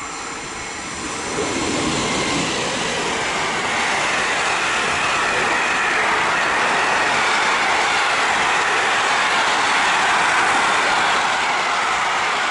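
Container freight train behind an electric locomotive passing close by at speed: the noise of wheels on rails grows over the first second and a half as the locomotive nears, then holds as a steady loud rush while the container wagons go by.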